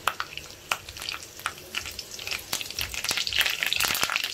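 Curry leaves and bay leaves frying in hot oil and ghee in a kadai, crackling with sharp scattered pops. The sizzle grows louder about three seconds in as a spatula stirs them.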